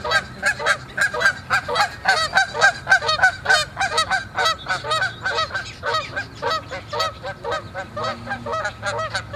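A group of Canada geese honking, many rapid calls a second with several birds calling over one another, which the onlooker takes for the geese fighting.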